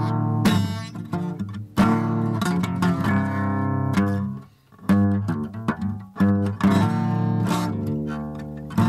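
Background music: an acoustic guitar playing strummed and plucked chords, with a short break about halfway through.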